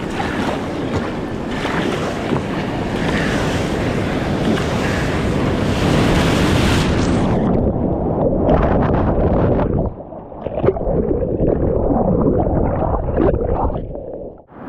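Breaking surf and wind on the microphone. About halfway through, a wave breaks over the kayak and the sound cuts to a muffled churning as the microphone goes underwater in whitewater.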